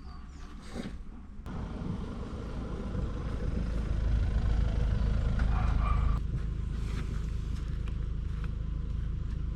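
Low rumble of a vehicle moving, building over a few seconds, loudest about four to six seconds in, then easing off suddenly to a steadier level.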